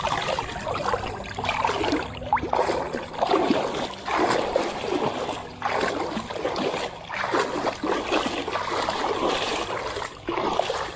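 Water splashing and sloshing in irregular surges as a large common snook, held by the lower jaw, thrashes its body and tail in the shallow water.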